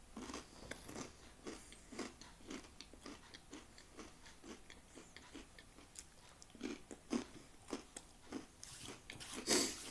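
Close-up crunching and chewing of Swedish crispbread (knäckebröd) with ham and soft cheese, about two crunches a second, with a louder burst of noise near the end.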